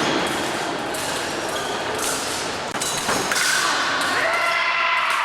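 Fencers' feet thumping on the piste during an épée bout, with a few sharp knocks, over the steady noise of a large sports hall.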